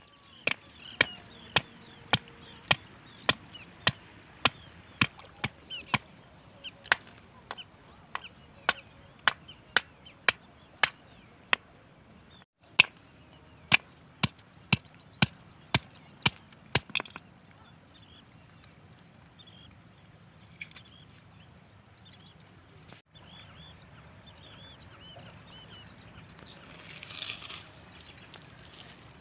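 A knife chopping into a catfish on a river stone: a steady run of sharp strikes, about one and a half a second, that stops a little past halfway.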